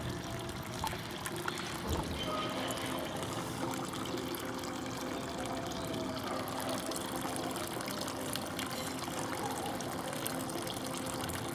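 Steady trickle and splash of a pump's return stream pouring into a small pond of water.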